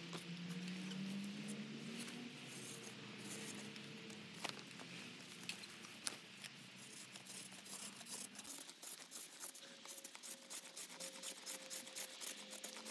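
Faint sounds of wood being worked by hand: scattered light clicks and scrapes that thicken into a quick run of small ticks in the last few seconds. A low hum rises slightly and fades after about two seconds.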